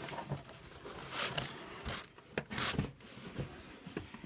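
A cardboard box being handled and set down: short rustling, scraping swishes of cardboard with a few light knocks.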